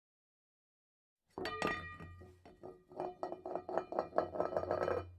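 Rapid clinking with ringing tones over a steady low hum: it starts suddenly about a second and a half in, runs at about five strikes a second, and grows louder toward the end.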